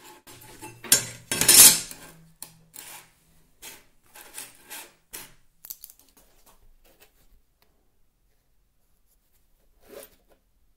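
Halves of a steel circular saw blade being handled on a wooden workbench: metal clinks, scrapes and knocks, loudest in the first two seconds, then thinning to occasional light taps, with one more soft knock near the end.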